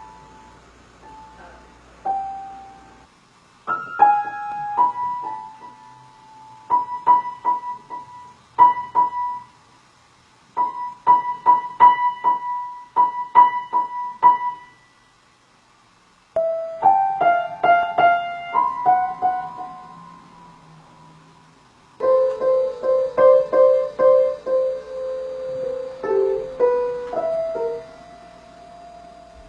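Piano keys pressed by a cat's paws: scattered single notes, quick repeated strikes of one high note, and a cluster of lower notes pressed together. The sound cuts off and starts afresh a few times.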